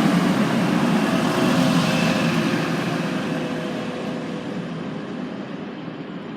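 Class 185 diesel multiple unit running away from the platform, its engine and wheel rumble steadily fading as it recedes.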